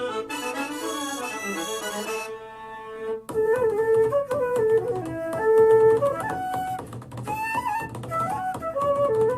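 Instrumental music played back through a Sony SRS-HG10 Bluetooth speaker with EXTRA BASS mode on: held accordion-like chords, then about three seconds in a new section starts with a moving melody line.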